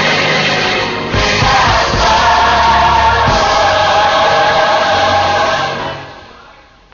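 Gospel choir singing with instrumental backing, holding a long sustained chord that fades away near the end, like the close of a song.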